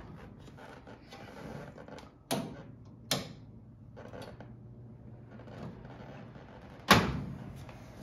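Two sharp clicks from the rocker switches of an electric fireplace-style space heater, a little over two and three seconds in, after which a low steady hum of the heater running sets in. Near the end the heater's front glass door shuts with a loud knock.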